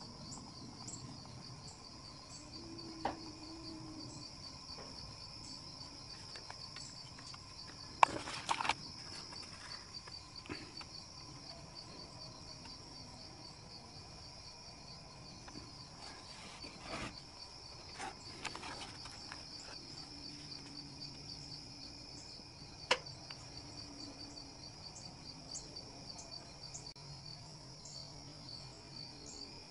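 Crickets chirping steadily in a fast, even trill, with a few scattered clicks and knocks, the loudest about eight seconds in.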